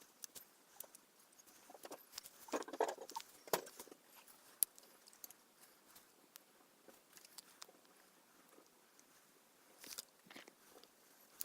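Small handling sounds of work on a plastic model kit and tools: scattered light clicks and scratchy rustles, with a longer burst of rustling about two and a half to three and a half seconds in and another shortly before the end.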